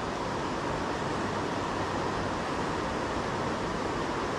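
Steady rush of a river flowing over shallow rocks and riffles.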